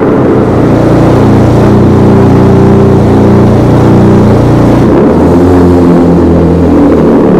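BMW straight-six engine running at steady raised revs through the AC Schnitzer ACL2's prototype exhaust system, with a loud, deep exhaust note. The pitch shifts slightly about five seconds in.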